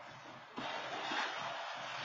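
Road traffic noise: a steady hiss of passing vehicles that gets louder about half a second in.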